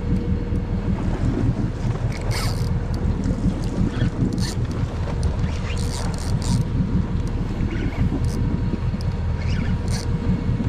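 A boat's motor runs steadily, with wind buffeting the microphone and a few short, sharp sounds scattered through.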